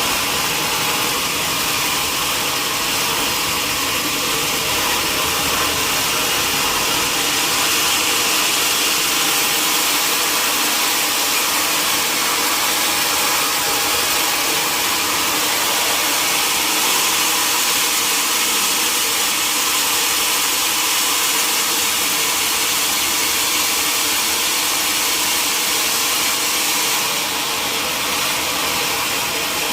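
Sawmill machinery running steadily, a loud even whir with no separate knocks or cuts standing out.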